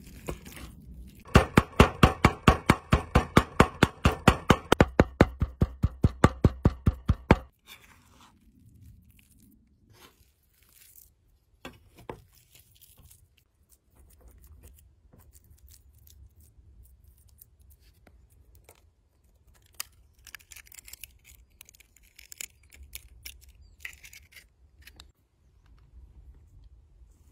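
Raw chicken being minced with a large steel chef's knife on an end-grain wooden cutting board. It is a fast run of sharp chops, about six or seven a second for some six seconds, that stops abruptly. Faint scraping and handling of the minced meat follow.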